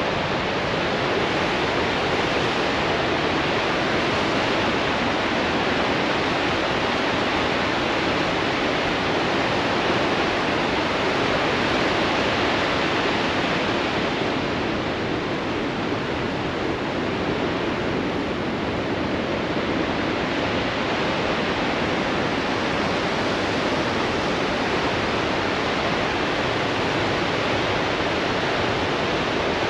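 Great Falls on the Androscoggin River running high: a steady rush of falling water and churning rapids, easing slightly for a few seconds in the middle.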